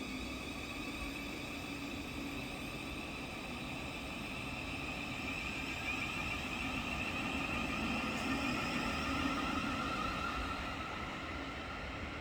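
A Thameslink electric multiple unit pulling out of the station, its traction equipment giving a steady whine over rolling noise that swells about two-thirds of the way through and then eases off as it draws away.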